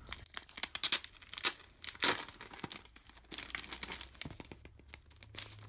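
Clear plastic packaging crinkling and crackling as it is handled, in a run of quick, sharp crackles that are loudest about two seconds in.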